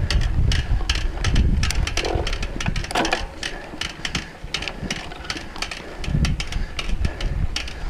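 Mountain bike clattering over a rough forest trail: a fast, uneven run of clicks and knocks from the bike's parts over a low rumble of tyres on dirt and wind.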